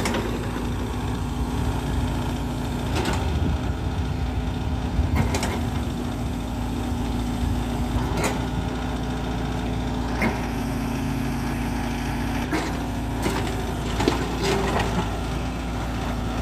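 Furukawa mini excavator's diesel engine running steadily while the operator works the hydraulic boom and bucket in the dirt. Several sharp knocks and clanks sound at irregular intervals as the arm and bucket move.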